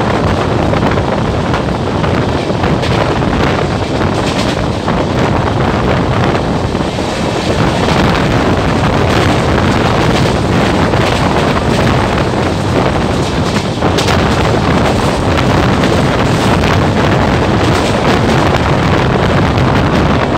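Heavy wind buffeting the microphone at the open door of a fast-running express passenger train, over the steady rumble and clatter of its wheels on the rails. A single sharp click sounds about two-thirds of the way through.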